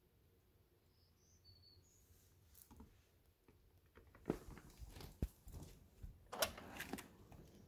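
Quiet at first with a few faint high chirps, then from about four seconds in a busy run of light clicks, scrapes and rustles with several sharper knocks, as a chipmunk scurries across a wooden floor.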